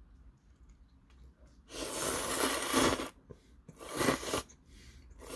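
Loud slurping of thick jjamppong noodles sucked up from the bowl, in two long noisy pulls about two and four seconds in, with a third starting at the very end.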